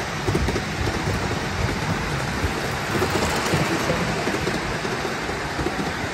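Ride-on miniature railway train running along its track: a steady rushing rumble with a dense rattle from the wheels on the steel rails.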